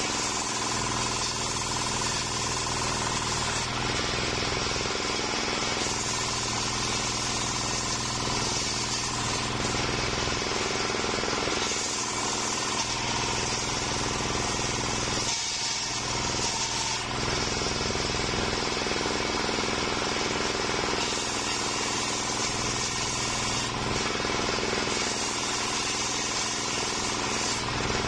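Homemade table circular saw ripping a green waru (sea hibiscus) log lengthwise. The blade runs steadily throughout, and a higher cutting hiss rises and falls in stretches of a few seconds as the blade bites through the wood. The sound eases briefly about halfway through.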